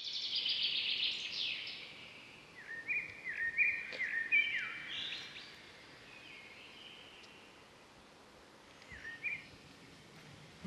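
Birds singing and calling: a fast trill at the start, then a run of short, repeated high calls, and one more call near the end, over a faint steady hiss of outdoor ambience.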